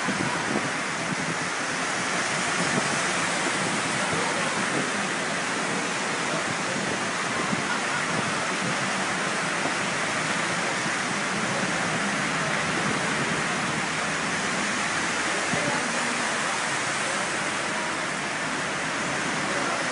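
Heavy rain and rushing floodwater in a flash flood, a steady dense hiss.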